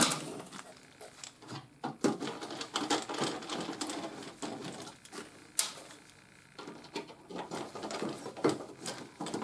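Hand screwdriver backing screws out of a 20-gauge steel patch panel held against a car fender: irregular small clicks, rattles and metal scrapes as the tool and screws turn and the panel is handled.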